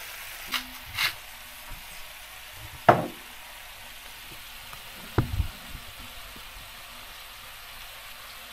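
Clams sizzling in olive oil in a frying pan, a steady hiss, with a few short sharp knocks; the loudest knock comes about three seconds in.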